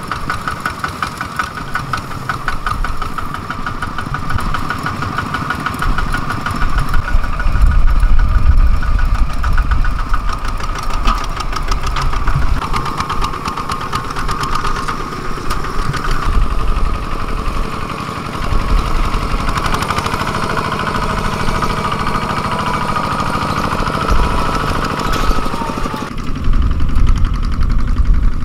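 Single-cylinder diesel engines of two-wheel walking tractors running under load while pulling laden trailers, a rapid, even knocking chug. The sound changes abruptly near the end.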